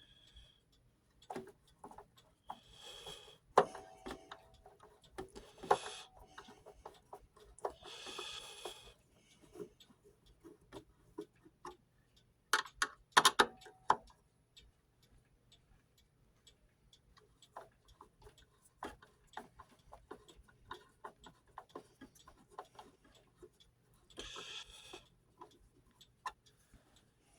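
Screws being backed out of a wooden wall clock case with a screwdriver: scattered small clicks and short scrapes, with a few louder clacks about thirteen seconds in.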